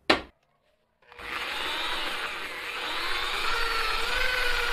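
Surtek electric drill spinning a wire wheel brush against a cast metal ingot. The drill starts about a second in after a brief click and runs as a steady whir with scrubbing, its pitch creeping up slightly.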